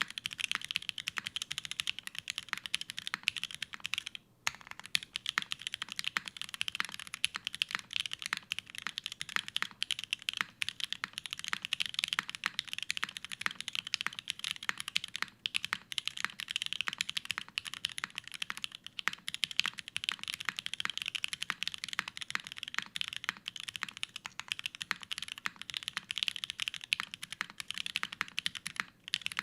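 Continuous fast typing on a custom mechanical keyboard: lubed JWK Alpaca linear switches on an aluminium plate with GMK keycaps, giving dense key clacks with one brief pause about four seconds in.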